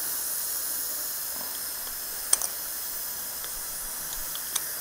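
Steady hiss of a dental surgical suction tip drawing air and fluid, with two sharp clicks of steel instruments touching, about two seconds apart.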